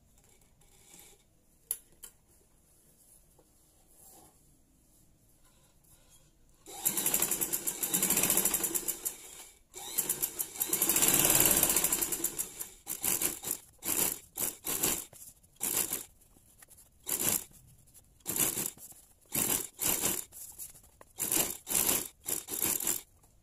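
Sewing machine stitching through curtain fabric, its needle going in a fast, even chatter. It starts about seven seconds in, runs in two longer spells, then goes in many short stop-start spurts as the seam is guided along.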